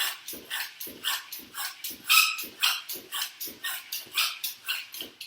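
Bicycle pump worked by hand in quick, even strokes, each stroke a short hiss of air, inflating a freshly fitted inner tube toward 40 psi.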